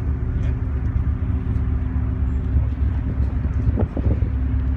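Steady low rumble with a droning mechanical hum, and a brief higher-pitched sound about four seconds in.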